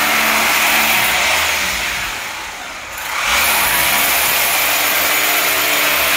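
Electric drill running steadily while boring holes into the floor for anti-termite chemical injection. It eases off briefly about two seconds in, then runs again.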